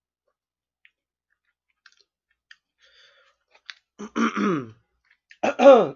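Faint scattered clicks, a fork against plastic food containers, for the first few seconds. Then a man's short wordless vocal sounds, falling in pitch, come about four seconds in and again near the end.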